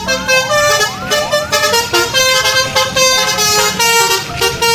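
Short intro jingle: a quick tune of horn-like tones, opening with several rising swoops.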